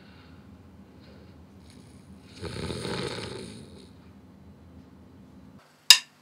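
A man snoring, low and steady, with one louder snore for about a second midway. Near the end, a single sharp click of drumsticks struck together, the start of a count-in for the band.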